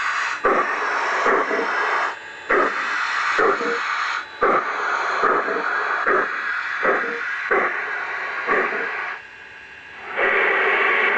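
G-scale model train running on garden track: a steady rushing noise with a sharp click about once a second. The noise dips briefly near the end, then comes back louder.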